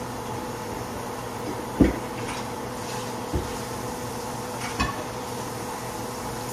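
Metal cookware clanking three times, the loudest knock about two seconds in, as pans and pots are handled on a stovetop, over a steady hiss and faint hum.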